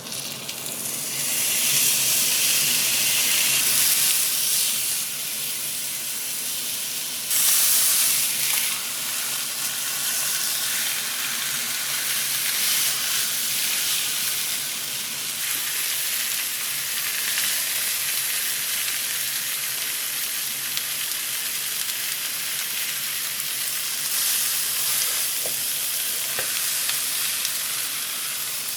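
Beef sizzling as it sears in a hot pan, the sizzling starting at once and swelling louder for about a second and a half some seven seconds in.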